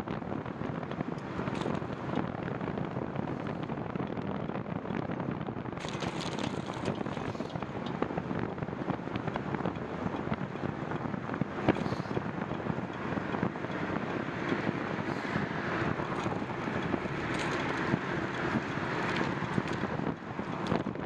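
Wind rushing over the microphone while riding a bicycle, a steady rough noise broken by frequent small clicks and knocks.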